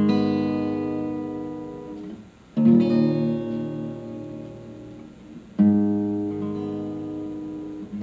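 Three guitar chords, about three seconds apart, each struck and left to ring and die away: the opening of the accompaniment to a Russian romance.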